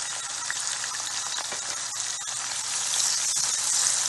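Chopped shallots, garlic, ginger, green chillies and curry leaves sizzling in hot coconut oil in a frying pan as a wooden spoon stirs them. The sizzle is steady and grows louder in the last second or so.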